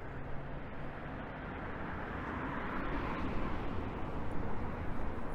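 Street traffic: a vehicle passes, its noise swelling and fading about two to three seconds in.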